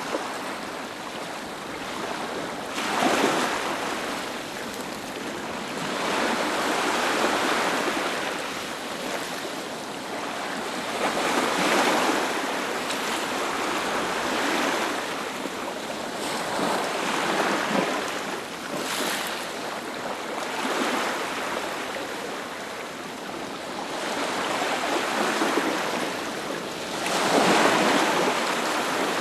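Sea waves breaking on a beach: a wash of surf that swells and falls back every four or five seconds.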